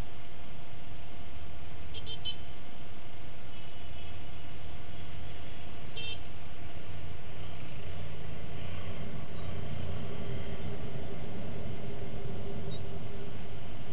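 Dense city traffic heard from a moving motorbike: a steady low rumble of engines and road, with short high horn beeps about two seconds in and again about six seconds in.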